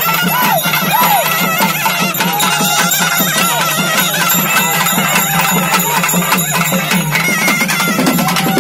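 Traditional festival music: fast, dense drumming with a pitched melody that bends up and down over it.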